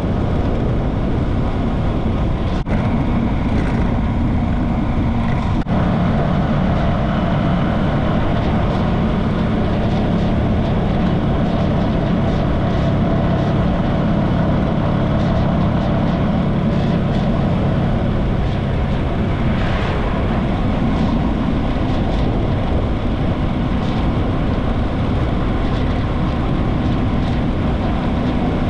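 Motorcycle engine running steadily while riding, mixed with road and wind noise.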